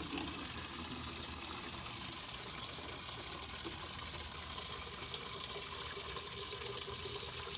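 Water gushing steadily.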